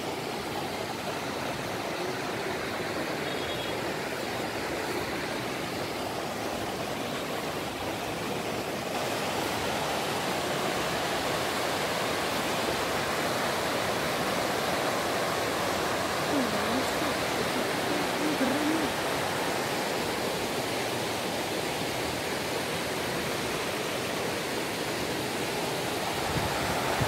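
Fast-flowing river rushing over boulders in rapids, a steady rush of white water from a strong current. It gets a little louder about nine seconds in.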